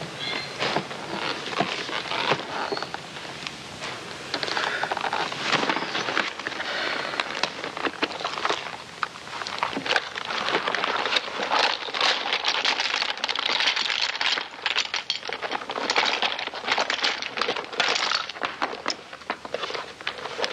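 Two people rummaging through a purse and a wallet or bag: rustling, crinkling paper and small objects being handled, with many small irregular clicks and knocks.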